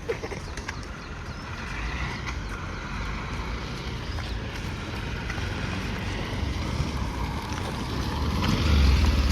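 Auto-rickshaw engine running as it draws closer, a low rumble growing louder toward the end.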